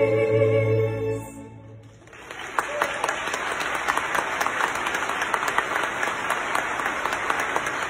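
Female singers and orchestra holding a final sustained chord that fades out about a second and a half in, followed by audience applause that rises and carries on.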